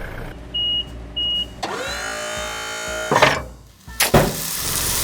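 Cartoon construction-vehicle sound effects: two short high beeps, then a motor winding up into a steady whine for about a second and a half, two sharp knocks, and a steady hissing machine noise near the end.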